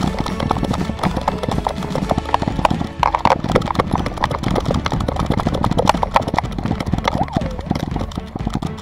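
Quick rhythmic thumping and rattling from an action camera strapped to a running dog's back, jolted with every stride as the dog's paws pound the ground.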